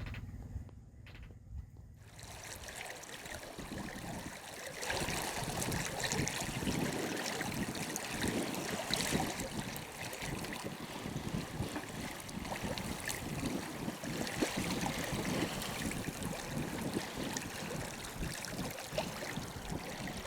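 Water rushing and splashing along the hull of a Catalina 42 sailboat under way, a steady wash that starts about two seconds in and grows louder a few seconds later.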